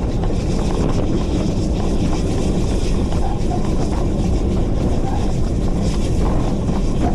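Steady, loud running rumble on the footplate of GWR Grange-class 4-6-0 steam locomotive No. 6880 Betton Grange as it travels along the line.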